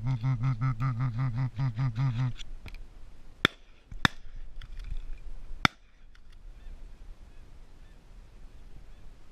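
Pulsing background music cuts off about two seconds in. Then come three sharp shotgun shots, a little over a second and a half apart in all, the first and last loudest.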